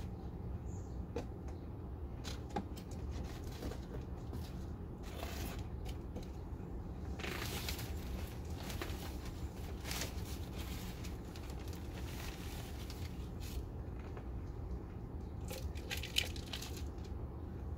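Potting soil being scooped and poured with a plastic cup into cut plastic bottle planters: scattered rustling, crackling and light plastic clicks, with a louder rustle about seven seconds in and a sharp click near the end, over a steady low rumble.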